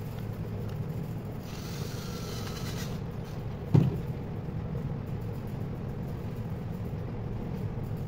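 Cordless drill-driver whirring for about a second and a half as it drives a terminal screw on a toggle switch, followed by a single sharp knock. A steady low hum runs underneath.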